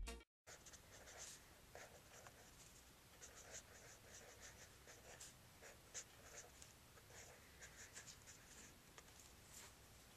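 Pen scratching on lined notebook paper as words are handwritten: a run of faint, short, irregular strokes. It cuts off near the end.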